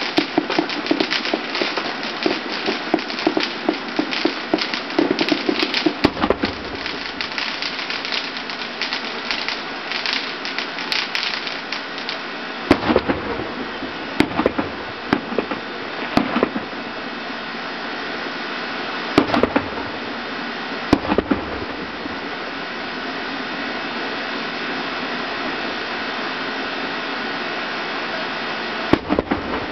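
Fireworks going off: dense, rapid crackling for the first dozen seconds, then scattered single deep booms a few seconds apart, about seven in all, over a steady hiss.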